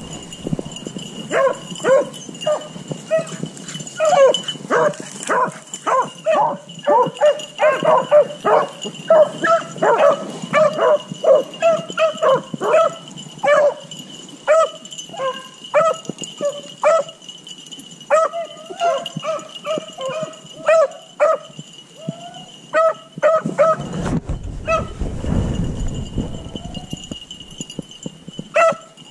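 Beagles baying on a rabbit's trail: a rapid, uneven string of short yelping barks, several a second, thinning out briefly near the end. A low rumble rises under the barks about four-fifths of the way through.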